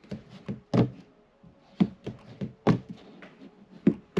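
Joycult wooden fingerboard with metal trucks being flipped and landed on a tabletop mat: a quick series of sharp clacks and taps, about ten in all, four of them louder.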